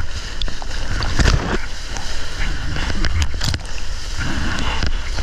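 Breaking surf and whitewater splashing close around a surfboard, picked up by a water-level action camera with a heavy low buffeting on the microphone; louder splashes come about a second in and again after three seconds.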